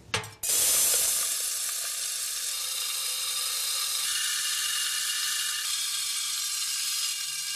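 Lead shot pouring in a steady stream into the metal bucket of a cement tensile-testing machine, the rising weight loading a Portland cement briquette toward its breaking point. The hiss starts suddenly about half a second in.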